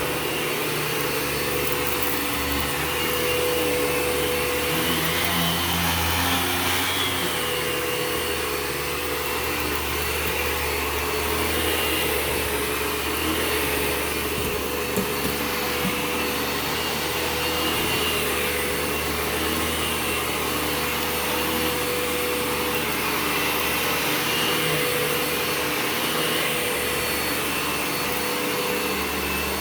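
Eureka TheBoss 4D upright vacuum cleaner running steadily: a constant rush of air with a steady motor whine, swelling and easing slightly every few seconds.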